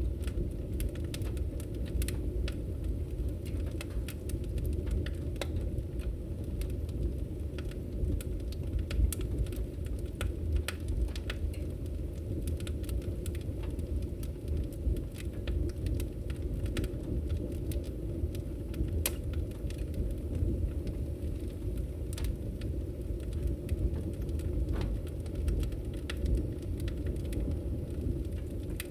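Fire crackling: a steady low rumble with frequent sharp, irregular pops and snaps.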